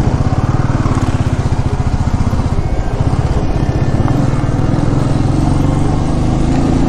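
Motorcycle engine running steadily while riding, its firing pulses thrumming evenly throughout.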